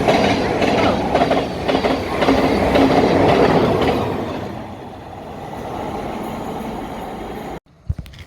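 Thameslink Class 700 electric train running along the platform, wheels clattering over rail joints with a steady rumble. After about four seconds it fades away, and the sound cuts off suddenly near the end.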